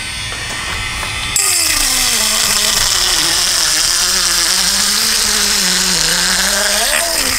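Electric fish scaler running against a fish's side, stripping off scales. It grows louder about a second and a half in, with a scraping hiss over a motor hum that wavers in pitch.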